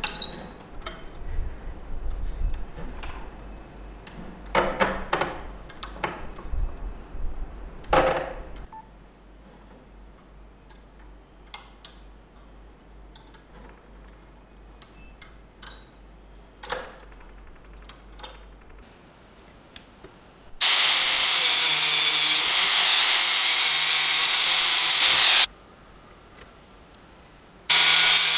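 Knocks and metal scrapes as a flat steel strip is worked through a hand-lever roller bender. Later an angle grinder with a thin cutting disc cuts through the steel strip. The cut runs for about five seconds, stops, and starts again near the end, and it is by far the loudest sound.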